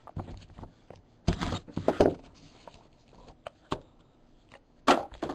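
A cardboard trading-card box being unsealed and opened by hand: scraping and rustling of the band and box in a few short bursts, two light clicks, and a sharp scrape near the end as the lid comes off.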